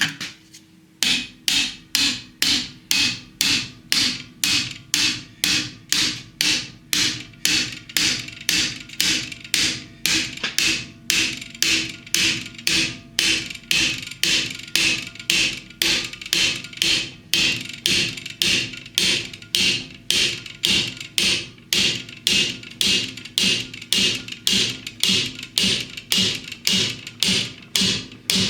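Steady hammer blows, about two a second, driving a chilled cast-iron cylinder sleeve into a Ford 8N tractor engine block; the sleeve is a tight fit.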